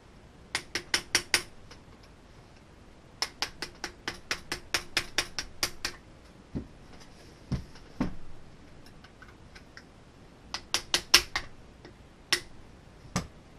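Quick runs of light, sharp metal taps, a few a second, with a few duller knocks between: a punch being tapped to drive a steel barrel band back onto a Trapdoor Springfield rifle's barrel and stock.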